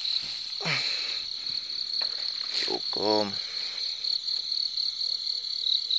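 Crickets chirping, a steady pulsing high-pitched trill. Two short falling sounds cut in near the middle, with a single click between them.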